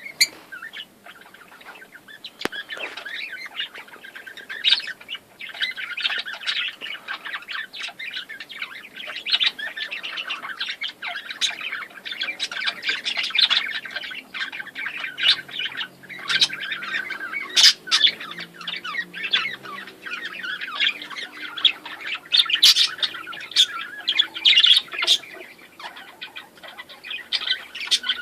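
A group of small birds chirping and squawking together in a dense, unbroken chatter, with sharp louder calls throughout.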